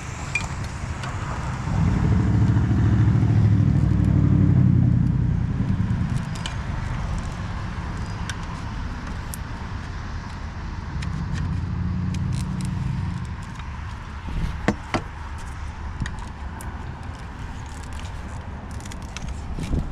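Low rumbling noise that swells twice, with scattered sharp clicks and scrapes from a plastic trim removal tool prying wiring harness connectors loose.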